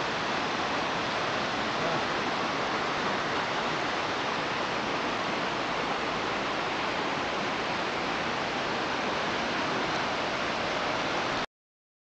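Rushing water of the Leuk stream and its waterfall through the town: a steady, even rush with no change in level that cuts off abruptly near the end.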